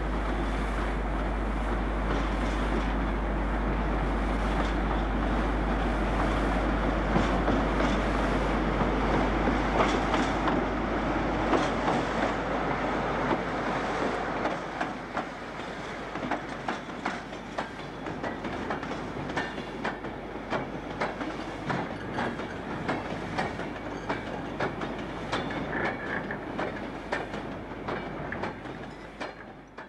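British Rail Class 47 diesel locomotive, with its Sulzer 12LDA28 V12 engine, passing close with a freight train; the engine is loudest in the first half. After about fourteen seconds it drops away, and the train's wagons clatter rhythmically over the rail joints as they roll past, fading near the end.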